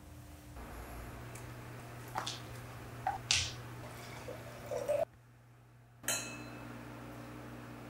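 A few short knocks and kitchen clatter, then red wine glugging from a bottle into a glass. About six seconds in comes a single clink of two stemmed wine glasses that rings briefly. A low steady hum lies underneath.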